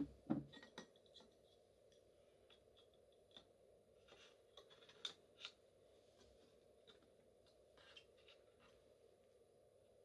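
Light clicks and taps of aluminium parts being handled as a front panel is fitted back onto an aluminium PC case. A short clatter comes at the start, then scattered faint clicks, with two sharper ones about five seconds in.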